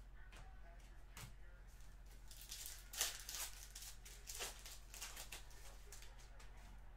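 Foil trading-card pack torn open and crinkled by hand, with the loudest rip about three seconds in and another crinkle a little later, then light rustling of cards. A faint steady low hum runs underneath.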